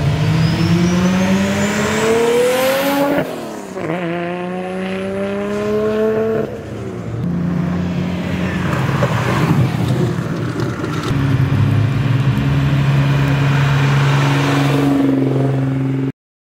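Car engines accelerating past one after another, each engine note rising in pitch and dropping at upshifts about three and six seconds in. Later a car holds a steadier engine note, and the sound cuts off abruptly near the end.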